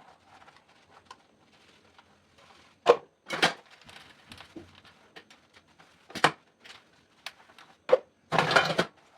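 Kitchen utensils being handled during cleaning: a few sharp knocks and clatters, spaced a second or more apart, then a rush of noise lasting about half a second near the end.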